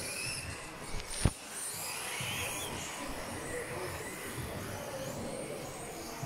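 Radio-controlled off-road buggies racing, their motors giving high-pitched whines that rise and fall as they speed up and slow down. A single sharp knock about a second in is the loudest sound.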